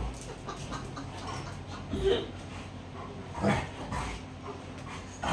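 German Shepherd dogs vocalizing as they play-fight, giving a few short yips and whines, about two seconds in and again around three and a half seconds.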